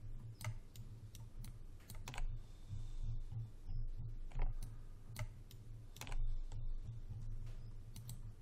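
Irregular clicks and taps of a computer keyboard and mouse in use, about a dozen spread unevenly, over a steady low hum.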